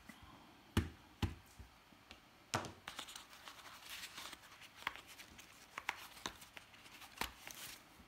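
Cardboard gift box being opened by hand: a few sharp knocks as the box and lid are handled, with scraping and rustling of card and the paper sheet over the contents in between.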